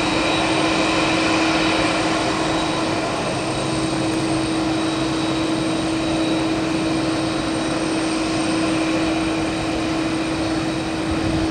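Boeing 767 freighter's twin turbofan jet engines running at taxi power: a steady whine and rush with a low hum.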